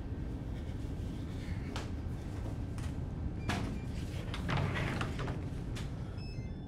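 Tall sliding doors being shoved and yanked along their tracks, a string of knocks and clatters that is busiest in the middle, over a low steady rumble.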